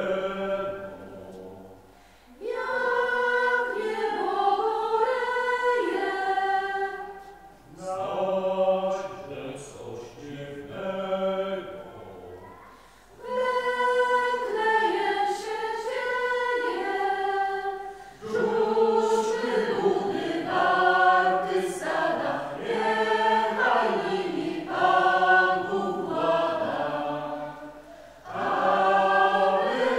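Mixed choir of women's and men's voices singing together, in phrases separated by short pauses.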